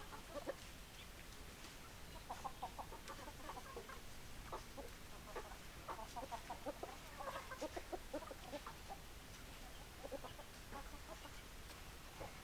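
Chickens clucking in quick runs of short calls, with pauses between the runs.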